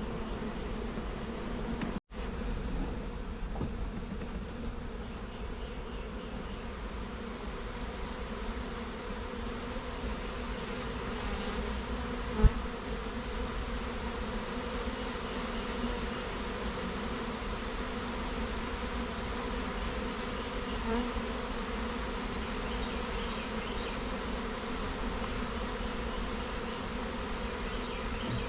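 A mass of honeybees buzzing steadily in a dense hum. One sharp knock about twelve seconds in.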